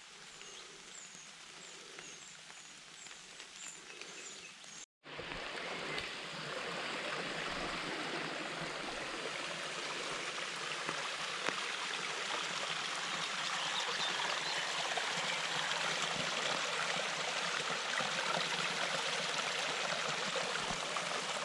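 Running water rushing steadily, from a stream or small fall on a hillside trail, after about five seconds of quieter outdoor air with faint high chirps.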